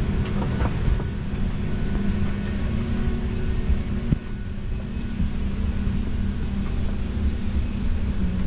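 Steady low hum and rumble of the ventilation inside the cabin of an Embraer E190 parked at the gate before engine start, with a single sharp click about four seconds in.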